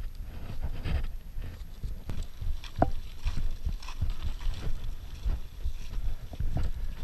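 Mountain bike rolling over a rough, leaf-covered dirt trail: irregular knocks and rattles from the bike, with wind rumbling on the body-worn camera's microphone. One short squeak about three seconds in.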